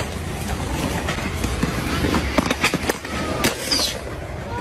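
Skateboard wheels rolling on a concrete skate bowl, with a low rumble that fades about three seconds in and a run of sharp clacks in the middle.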